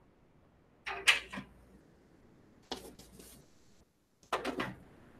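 Handling noise of a euphonium and its cardstock practice mute: three short bursts of knocks and papery rustles about a second and a half apart, the first the loudest.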